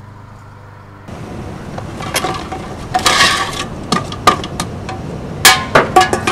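Junk being rummaged through: plastic and glass items clattering, clinking and scraping in a run of sharp knocks and a longer scraping rustle. A low hum plays under the first second, before outdoor background noise comes in.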